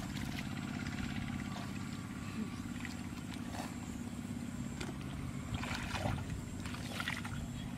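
Shallow muddy water splashing and sloshing a few times as hands and legs move through it, over the steady hum of a small engine running in the background.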